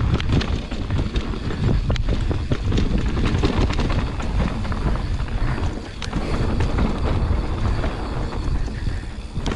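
Wind noise on the microphone and mountain bike tyres rolling fast over a dirt trail, with many short sharp rattles and clicks from the bike over bumps.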